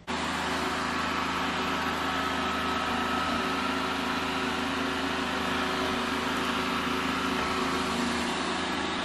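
Robot vacuum-mop running: a steady motor hum and whine with a constant rushing noise of suction.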